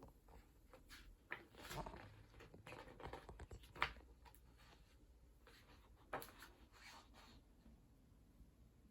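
Soft paper rustling and light taps as pages of a book are handled and turned, in short scattered bursts with a louder tap about four seconds in.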